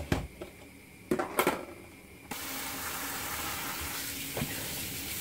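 A few knocks as the fish are handled in a plastic basin in a steel sink, then about two seconds in the kitchen tap is turned on and water runs steadily into the basin.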